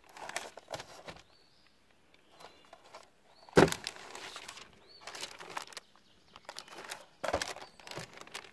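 Cardboard ammunition boxes being handled and set down on paper: light rustling and small clicks, with a sharp knock about three and a half seconds in and another, weaker one a little after seven seconds.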